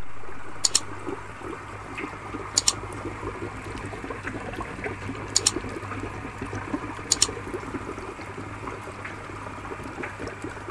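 Water trickling steadily, over a faint low hum, with a few sharp clicks, mostly in close pairs, about two seconds apart.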